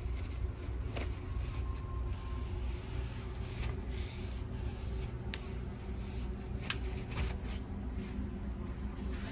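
Scattered light scrapes, rubs and clicks of hand cleaning, over a steady low hum.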